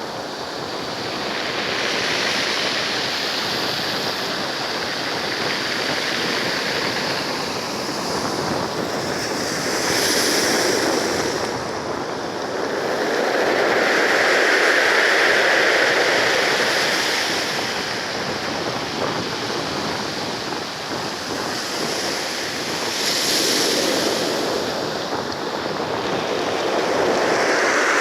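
Sea surf: waves rolling in and washing back, a continuous rush that swells and eases every few seconds.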